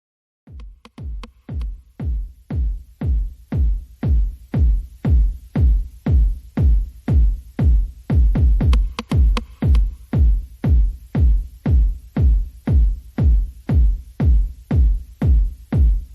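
Electronic background music with a steady, heavy kick-drum beat, about two beats a second, fading in about half a second in.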